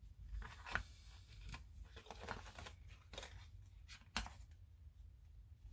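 Faint rustling and light clicks of plastic model-kit hull parts being handled and fitted together, with sharper clicks about a second in and near four seconds.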